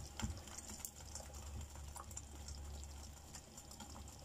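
Faint ticking and crackling of a frozen paratha cooking in a dry non-stick frying pan, over a low steady hum.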